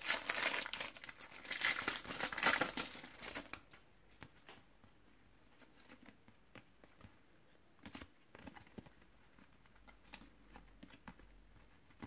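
A Panini trading-card packet wrapper being torn open and crinkled for about the first three and a half seconds, then soft scattered flicks and clicks as the cards are shuffled through by hand.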